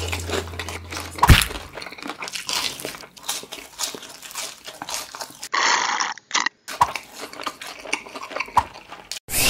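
Close-up crunchy chewing of a fried chicken burger: many crisp crackles and bites, with a sharp crunch about a second in. A hiss-like crackle lasts about a second a little past the middle.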